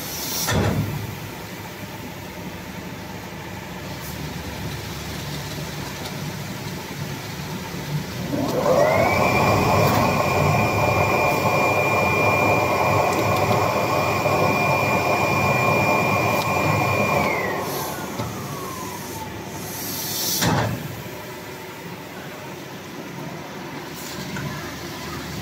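Coreless winder for air bubble film running, with a steady mechanical drone. About eight seconds in, a whine rises quickly to a high steady pitch and holds for about eight seconds, then falls away as the machine speeds up and slows down again. There is a short burst of hiss just after the start and another near the end.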